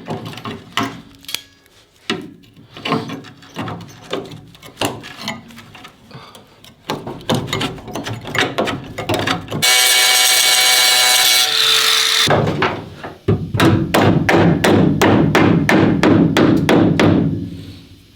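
Hammer blows and knocks on car-body sheet metal. About halfway through, a power tool runs steadily for a couple of seconds and winds down. A quick, even run of hammer strikes follows.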